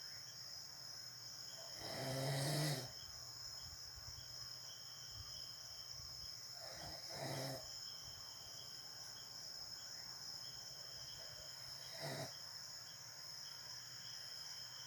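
A sleeping person snoring loudly: a long snore about two seconds in, a double snore around seven seconds and a shorter one near twelve seconds, spaced with the breathing. A steady high-pitched whine runs underneath.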